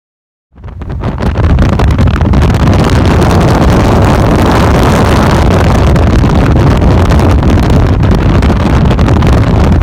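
Dust-storm wind buffeting the microphone: a loud, steady rush with a heavy, fluttering low rumble, starting suddenly about half a second in.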